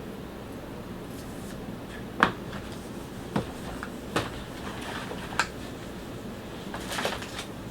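Items being handled on a counter: four short, sharp clicks or taps spaced about a second apart, then soft rustling near the end, over a steady low room hum.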